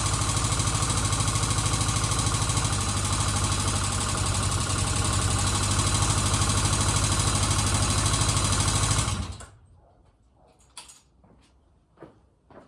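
1977 Kawasaki Z400 parallel-twin engine running steadily at idle, running properly with its carburetors refitted and the vacuum leaks cured. It is switched off about nine seconds in and dies away quickly, leaving a few faint clicks.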